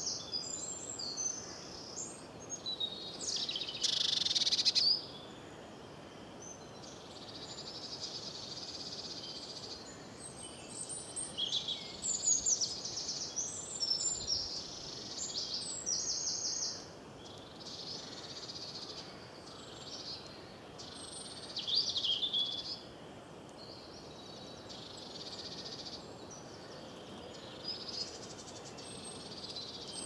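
Songbirds singing and calling: many short, high phrases, trills and chirps, with the loudest bursts about four seconds in and again around twelve, sixteen and twenty-two seconds, over a steady low background hiss.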